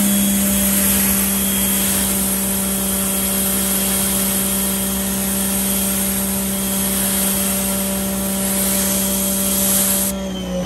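Giraffe Tools Grand Falls 2200 PSI electric pressure washer running under load, its motor and pump giving a steady hum under the hiss of the water jet spraying across a car's hood. About ten seconds in the spray cuts off and the motor winds down with a falling pitch as the trigger is released.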